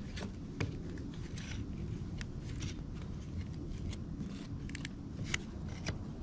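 Plastic trim removal tools prying and scraping under an adhesive-taped plastic housing, with scattered small clicks and scrapes over a steady low background rumble.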